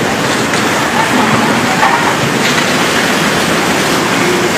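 Debris-laden mudflow (aluvión) of the overflowing Río Salado surging through the streets: a loud, steady rushing noise with wood and debris cracking in it.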